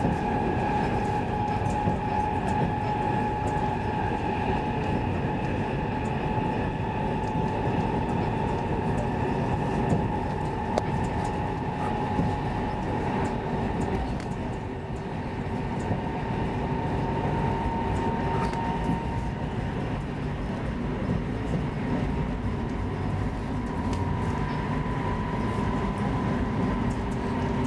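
Inside a Stockholm X10 commuter train running between stations: a steady rumble of wheels on track under a high, even electric whine. The whine fades about halfway through and returns at a slightly higher pitch.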